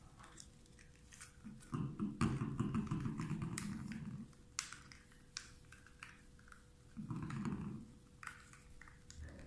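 Light clicks and taps of plastic and silicone breast pump parts being handled and fitted together, with two longer low rumbling sounds, the louder about two seconds in and a shorter one about seven seconds in, over a faint steady hum.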